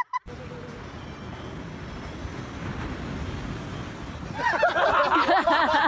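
A steady rushing noise that slowly grows louder. From about four and a half seconds in, loud wavering voices of people yelling or laughing come in over it.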